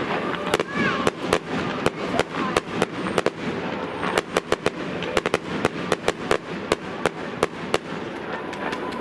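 Aerial fireworks going off: a rapid, irregular run of sharp bangs and cracks, thickest about halfway through and thinning toward the end.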